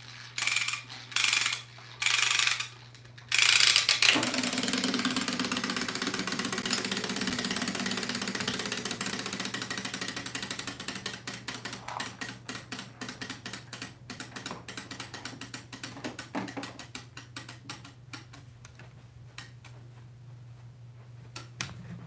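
Wind-up clockwork bath toy: three short bursts of ratchet clicking as it is wound, then its spring motor whirs with rapid ticking, slowly running down over the next fifteen seconds into sparser, slower ticks.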